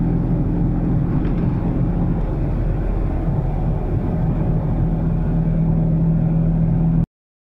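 Fiat 126p's air-cooled two-cylinder engine running steadily while driving, heard from inside the cabin with road noise. The engine note drops briefly about two seconds in and comes back, and the sound cuts off abruptly near the end.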